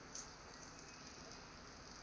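Near silence: a faint steady hiss, with one brief faint tap just after the start.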